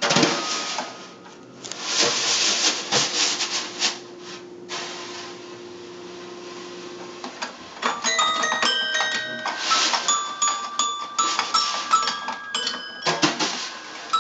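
Snare drum played with sticks in quick strokes, joined about halfway through by a toy piano's bell-like notes, plinked one at a time at scattered pitches by a baby, over further drum strokes.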